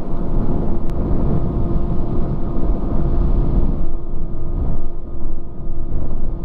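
Motorcycle engine running at a steady pitch while under way, with a heavy low rumble.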